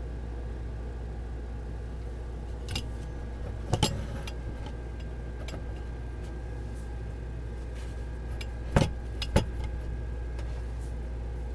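Handling noise from a camera being adjusted by hand: a few sharp knocks and clicks, a pair about four seconds in and two louder ones near the end, over a steady low hum.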